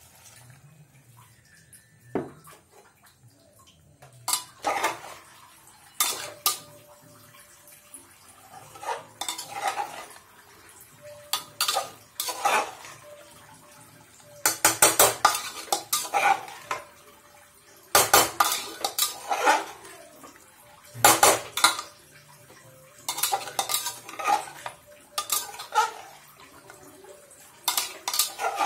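Metal ladle scraping and clinking against the inside of a metal pressure cooker pot while stirring chunks of raw papaya and soaked chana dal. The strokes come in irregular bursts and begin about two seconds in.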